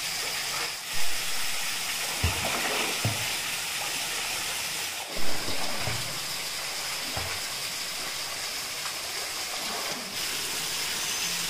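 Steady rushing of a small waterfall pouring into a rock pool, with a few sudden splashes from a person wading and swimming in the water, the loudest about a second in and again just after five seconds in.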